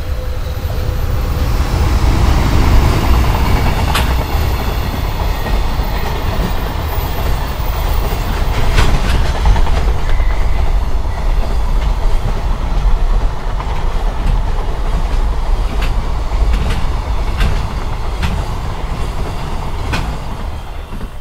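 JR Freight EH500 electric locomotive and its Koki container wagons passing at speed: a heavy low rumble with a clickety-clack of wheels over rail joints, swelling as the train arrives and dropping away near the end as the last wagons go by.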